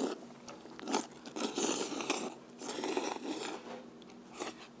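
Slurping of hand-pulled jajangmyeon noodles: a few long, hissy slurps with short breaks between them, with some chewing.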